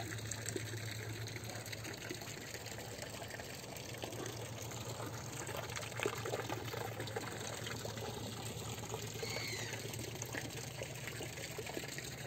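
Water running steadily over the rim of a stone plunge pool into the basin below, a continuous trickling pour.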